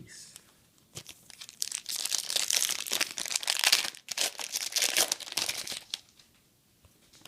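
Trading card pack wrapper being torn open and crinkled, in two stretches of about two seconds each with a brief break in between.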